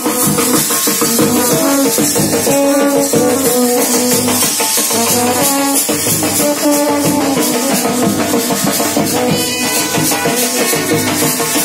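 Indian wedding brass band playing a marching tune: brass horns carry the melody over a bass drum, with a steady high rattle of percussion throughout.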